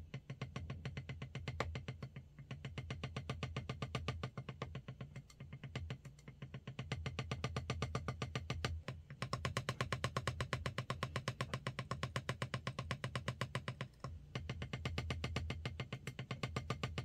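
One drumstick tapping a drum practice pad in a fast, even stream of single strokes, bounced off the pad by a quick twitch of the wrist. The stream breaks off briefly twice.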